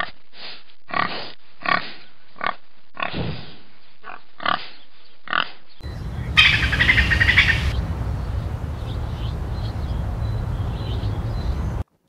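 Piglets squealing and grunting: about ten short, pitched calls over the first half. Then a steady low rumble takes over, with one brief rasping burst lasting about a second.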